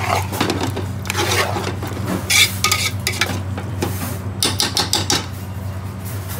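Chicken curry being stirred in a large metal pot, the utensil scraping against the pot, over a steady low hum. There is one loud scrape about halfway through and a quick run of scrapes near the end.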